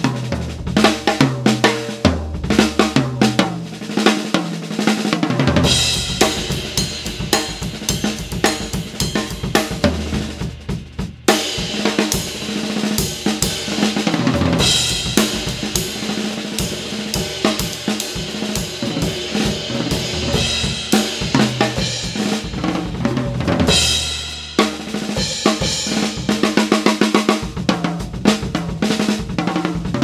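Sakae "The Almighty" drum kit played in a continuous groove, with bass drum, snare and cymbals. Long stretches of ringing cymbal wash are broken by a brief stop about eleven seconds in.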